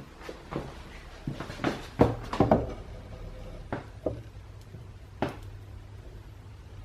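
Scattered metal knocks and clinks from handling a red-hot crucible of molten gold with tongs at a melting furnace, to pour it into an ingot mould. The loudest cluster comes about two seconds in, with single knocks later, over a low steady hum.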